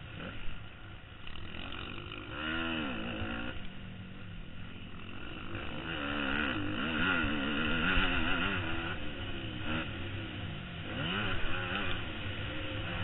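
Motocross dirt bike engine revving up and down as the rider works the throttle around the track, with rising and falling sweeps in pitch as it accelerates and backs off.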